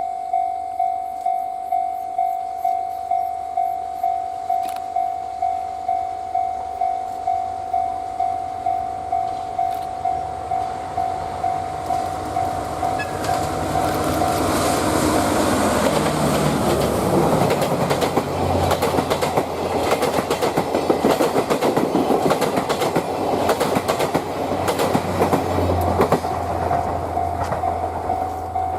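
Level-crossing warning bell dinging steadily at about one and a half strikes a second, then a DE10 diesel-hydraulic locomotive hauling 12-series passenger coaches passes from about halfway through: a low engine drone followed by wheels clacking over the rail joints as the coaches go by. The crossing bell is heard again near the end.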